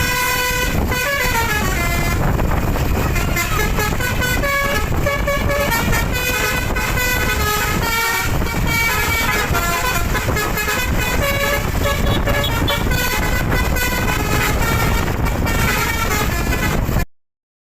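Bus telolet horn: a multi-tone basuri air horn sounding a continuous run of changing musical notes and short melodic phrases over a running engine. It cuts off suddenly near the end.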